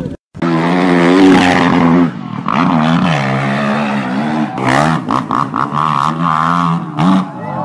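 Dirt bike engine revving hard, its pitch climbing and falling with the throttle, with short drops in level about two seconds in and again near the end.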